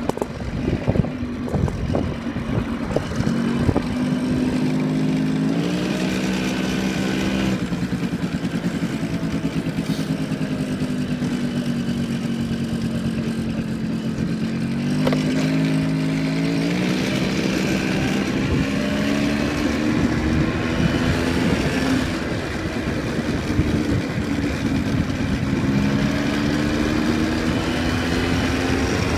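Yamaha motorbike engine running as it rides along a street, its pitch stepping up a few times under throttle and easing off in between, with wind noise over it.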